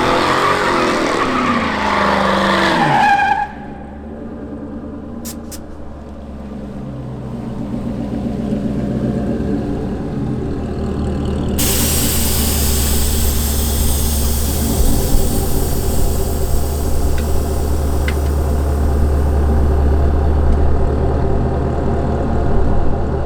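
Motor vehicle: tyres squeal for about three seconds, then the engine runs with a steady low drone that grows louder, and a hiss joins it about halfway through.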